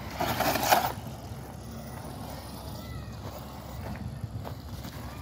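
Electric RC 6x6 truck with twin stock 550 motors driving, with a loud scrabbling burst about half a second long just after the start as it crosses from wood chips up onto pavement. After that it runs along at a steadier, lower level.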